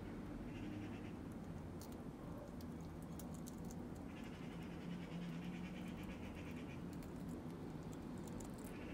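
Eurasian red squirrel eating a raw egg: faint, scattered small clicks and scratches of its teeth and claws on the eggshell, over a low steady hum.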